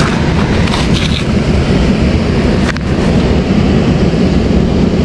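Steady wind rumbling on the microphone over surf noise, loudest at the low end, with a few faint clicks about a second in.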